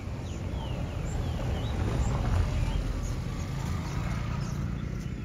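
Steady, low outdoor rumble, with a few faint high chirps in the first second and a half.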